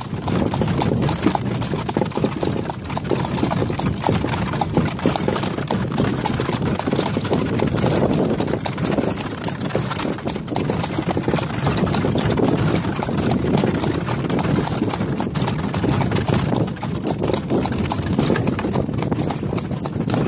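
A harness horse's hooves clip-clopping steadily on a paved road as it pulls a cart.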